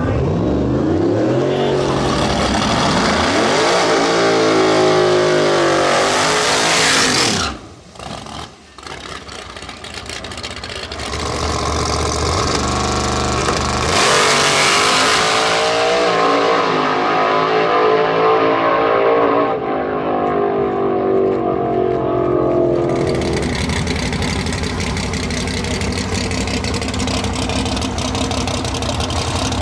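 Drag racing car engine at full throttle, pitch climbing as it accelerates down the strip, cutting off sharply about seven seconds in. A second loud engine run follows from about ten seconds. It settles into a steadier, lower engine note after about twenty-three seconds.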